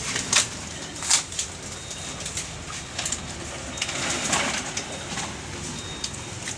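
Pigeons cooing, with sharp knocks and rustles; the loudest come about half a second and a second in.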